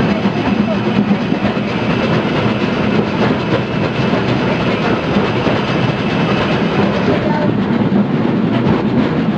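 Baldwin steam tram No. 100 in motion along its track, heard from inside its cab: a steady running noise of the moving tram.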